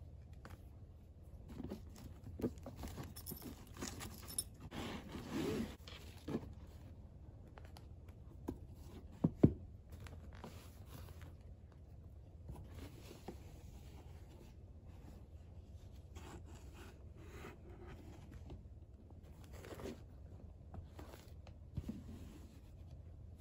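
Soft handling sounds of bag contents on a tabletop: fabric and a clear vinyl pouch rustling and scraping, with a few light taps and one sharper knock about nine seconds in.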